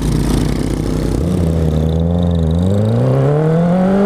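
Honda CB650F inline-four engine idling, then accelerating away from a stop. Its note climbs steadily from about two and a half seconds in.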